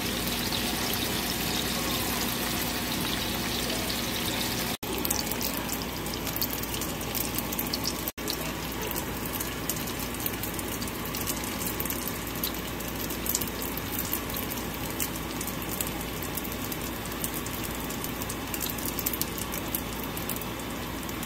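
Tofu frying in hot oil in a pan: a steady sizzle with frequent small crackles and pops, broken by two brief gaps.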